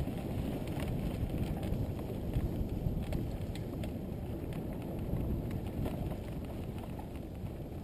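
Mountain bike ridden fast over a dirt and grass trail, heard from a helmet-mounted camera: a steady low rumble of wind on the microphone and tyres on the ground, with light scattered clicks and rattles.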